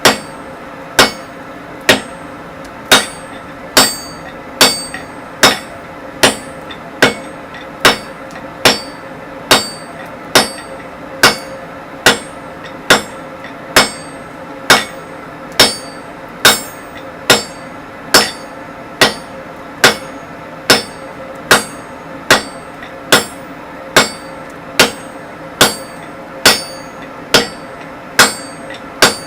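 Sledgehammer blows on a hot 25 mm square mild steel bar on the anvil, struck at an even, steady pace of a little more than one blow a second, each hit sharp and briefly ringing.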